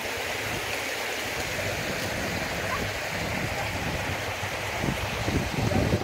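River water rushing steadily, with a few low thumps near the end.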